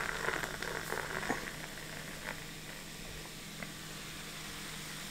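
Red Bull poured from a can into a glass, the pour ending about a second in, then the carbonated drink fizzing softly in the glass as its foam head settles, with a few faint ticks of popping bubbles.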